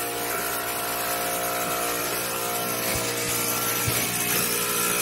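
Hantop portable electric goat milking machine running steadily: a continuous motor hum with hiss from its vacuum pump as it draws milk through the line.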